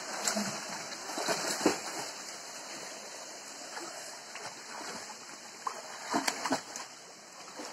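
Boys swimming in a river pool, splashing water over a steady rush of flowing water, with a few louder splashes about two seconds in and again around six seconds.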